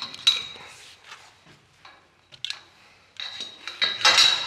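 Large aluminium scaffold hooks knocking and clicking against the metal scaffold tubes as they are hooked on and moved: a few sharp clicks, then a longer metallic clatter with ringing, loudest about four seconds in.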